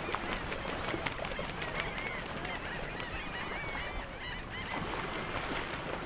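A large flock of waterbirds calling all at once: many short, overlapping honking calls over a steady rushing noise.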